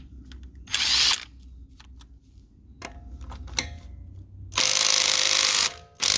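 Hart 20V 3/8-inch cordless impact wrench hammering in bursts on a nut set to 130 foot-pounds: a short burst about a second in, a few light clicks, then a longer burst near the end.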